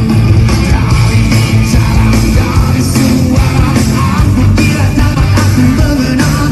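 Loud rock music with heavy bass and drums.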